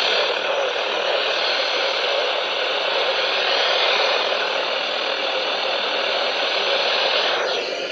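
Steady radio static: an even hiss from a weather-radio receiver between broadcast messages.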